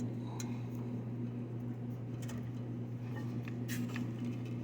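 A few faint clicks of wire connectors being handled and pushed onto the hard start kit's terminals, over a steady low electrical hum.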